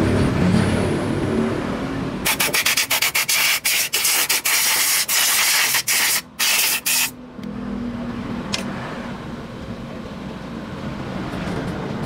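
Compressed-air blow gun blasting a motorcycle starter motor's housing clean in a quick run of short hissing bursts, from about two seconds in to about seven seconds in. Cloth rubbing and handling of the metal parts before and after.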